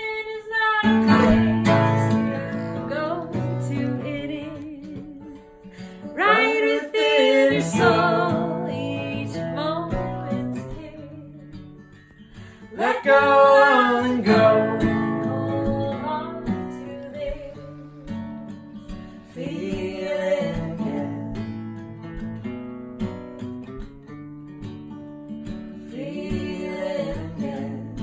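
Music: an acoustic guitar strummed and picked, with loud chord strums about every six to seven seconds at first, then softer playing in the second half.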